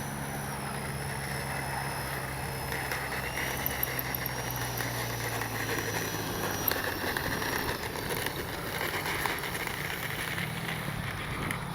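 Electric ducted fan of a 64mm F-86 Sabre model jet running at low throttle on the ground: a thin high whine that drifts slowly in pitch over a steady low hum, growing rougher for a few seconds mid-way.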